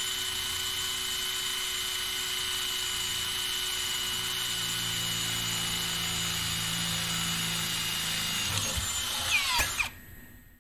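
Cordless Würth rivet tool driving a self-drilling blind rivet into aluminium angle: a steady motor whine, with a lower note joining about four seconds in as the rivet drills in. Near the end there are a few sharp peaks and the whine falls away, stopping about ten seconds in.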